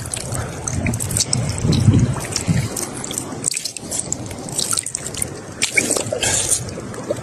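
Water dripping and trickling in irregular small drops and splashes, from a wet, inflated pufferfish held over shallow water.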